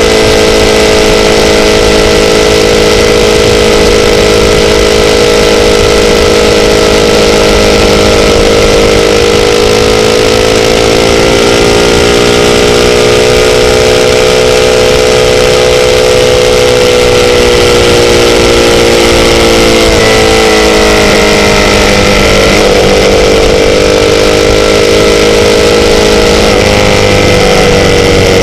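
Sportbike engine running at a steady, loud drone, its pitch drifting slowly up and down with throttle and dipping briefly twice, over a constant rush of noise.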